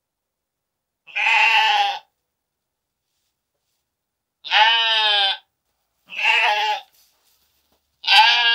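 Sheep bleating: four separate, wavering bleats of about a second each, with silence between them, the last starting near the end.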